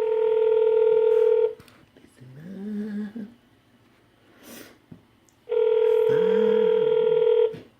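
Telephone ringback tone heard by the caller while waiting for an answer: two steady 2-second rings about four seconds apart, in the US ringing cadence. A short low hum of a voice comes between the rings.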